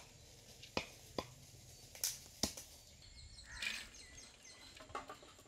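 Scattered sharp clicks and knocks, several in a few seconds, from ingredients and utensils being handled at an earthen cooking pot, with a brief noisy rustle about three and a half seconds in.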